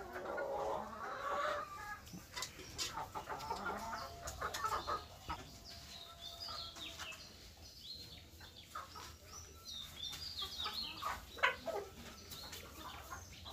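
A flock of desi chickens, mostly laying hens with a few roosters, clucking and calling on and off, with short sharp clicks mixed in.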